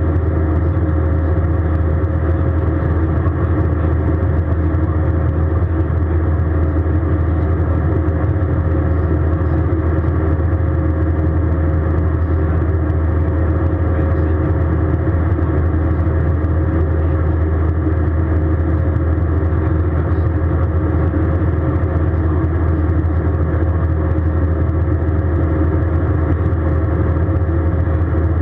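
Steady cabin drone inside an Airbus A320 in flight, the engines and airflow making a deep, even rumble with a steady hum over it.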